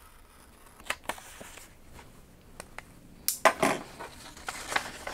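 Paper software-disk envelope being torn open at its seal sticker. A couple of light clicks about a second in, then a short, loud rip about three seconds in, followed by paper rustling.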